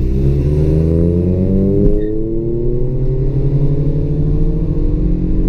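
Car engine accelerating hard, heard from inside the cabin: its pitch climbs, drops at a gear change about two seconds in, then climbs again through the next gear.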